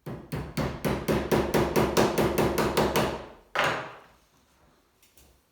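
A small hammer tapping a retaining pin in to fix the shotgun's sight: about twenty quick, even strikes, some six a second, then a single further knock a moment later.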